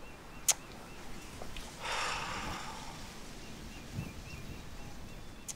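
Rural outdoor ambience: a small bird chirping in a faint, evenly repeated series, with a sharp click about half a second in and a brief rustling hiss around two seconds in.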